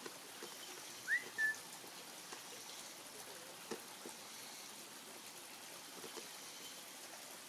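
A short, loud whistle about a second in: a quick rising note followed by a brief held one. After it come a few faint clicks over a steady background hiss.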